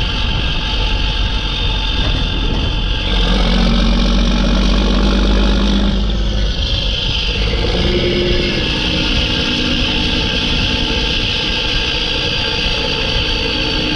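Mack E7 inline-six turbo diesel in a CH612 truck pulling through the gears. The engine note climbs about three seconds in, drops around the middle at a gear change, then climbs again. A high turbo whistle rides over the engine, strongest in the second half.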